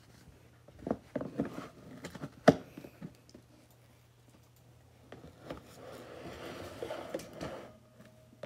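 Clear plastic storage-tub lid being set down and snapped shut: a handful of clicks and knocks, the loudest about two and a half seconds in, followed by a few seconds of rustling handling noise.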